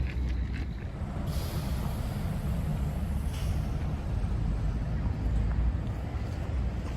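City street traffic: a heavy vehicle such as a bus or truck rumbling by, with a short hiss like an air-brake release about a second in and a fainter one around three seconds.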